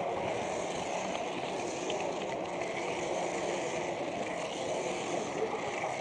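Steady rolling and running noise of an H0 model train travelling over Märklin C-track, picked up close by the camera riding on the train.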